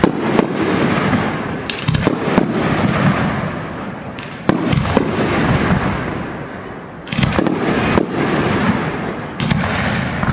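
Aerial firework shells bursting in a display, a dozen or so sharp bangs at irregular intervals, each trailing off into a long rolling echo.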